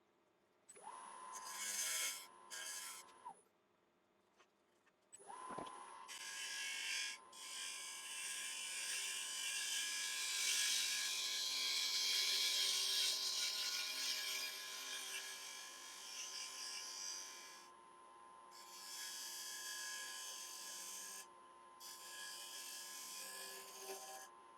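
Wood lathe running with a steady motor whine that stops about three seconds in and glides back up to speed a couple of seconds later, while a turning tool cuts the spinning Iroko bowl blank with an uneven hiss that comes and goes.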